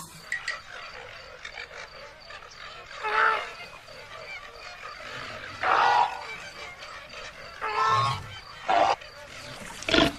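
An animal calling: five loud, short calls a second or two apart over a steady background noise.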